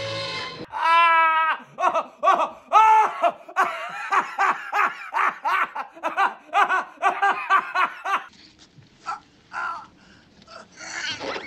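A man lets out a loud yell that breaks into hard, rapid belly laughter, about three to four ha-ha pulses a second. It trails off into a few fainter laughs near the end.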